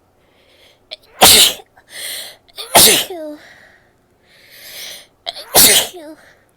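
A woman sneezing three times in a row, each sneeze coming after a quick breath in. The second and third sneezes end in a short falling vocal tail.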